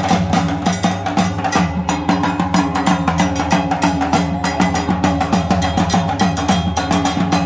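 Large barrel drums beaten together in a fast, steady rhythm.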